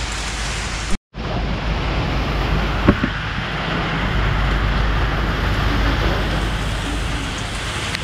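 Steady heavy rain falling, an even hiss that cuts out for a moment about a second in and then resumes with a deeper rumble underneath. One sharp knock near three seconds.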